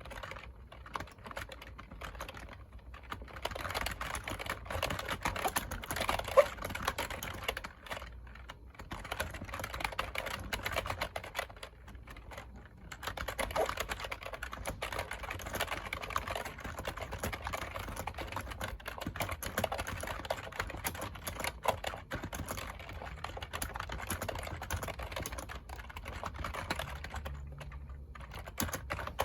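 Continuous fast typing on a computer keyboard, a dense patter of key clicks with brief pauses every few seconds.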